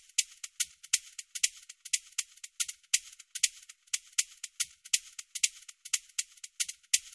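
Dry, high rattling clicks in an irregular patter, several a second, like a shaker or rattle being shaken.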